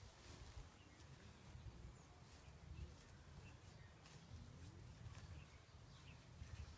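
Near silence: a faint, uneven low rumble with a few faint bird chirps.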